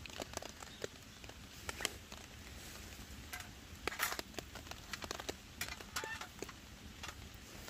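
Charcoal burning with open flames in a small folding steel stove, crackling with irregular sharp pops. A few metal clinks come around four and six seconds in as a steel grill grate is set on top.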